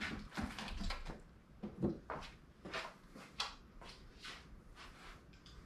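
Soft knocks and handling clicks as a throwing knife is pulled from a wooden log target, then footsteps on a concrete floor, a soft step about every half second.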